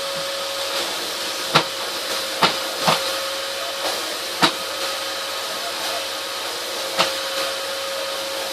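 Vacuum cleaner running steadily with a constant high motor whine, with several sharp knocks at uneven intervals as it is pushed about.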